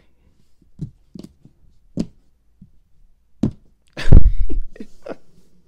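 Hands handling trading cards on a tabletop: several light taps and clicks as cards are set down, then a single loud, deep thump about four seconds in.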